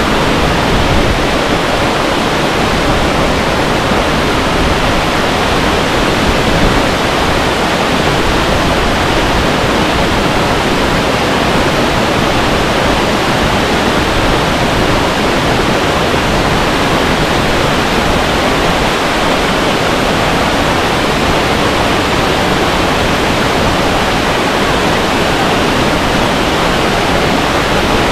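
Girlevik Waterfall's falling water making a loud, steady rushing roar.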